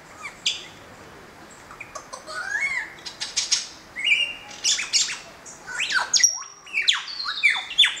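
Superb lyrebird singing a rapid, varied medley of mimicked calls: chirps, clicks and warbling glides, then from about six seconds in a series of sharp whistles sweeping steeply downward.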